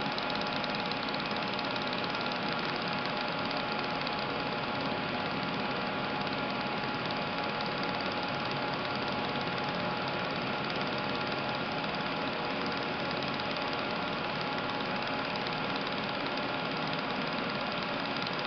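TIP TIG hot-wire welding arc and wire feed running steadily: a constant, even hiss with a faint steady whine through it.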